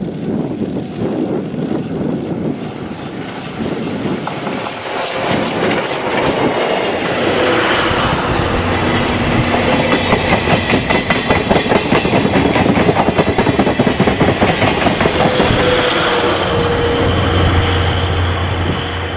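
Steam-hauled train of the C57 180 locomotive and 12-series passenger coaches passing close by, its wheels clattering rhythmically over the rail joints. The clatter builds and is loudest around the middle, then eases near the end.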